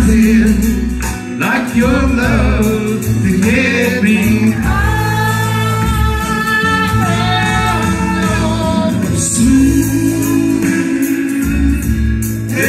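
Two men singing a slow country-soul ballad into microphones over a karaoke backing track, holding one long note through the middle.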